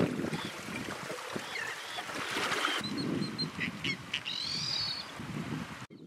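Royal terns calling: scattered short, harsh calls, with a longer call about four seconds in, over steady outdoor background noise.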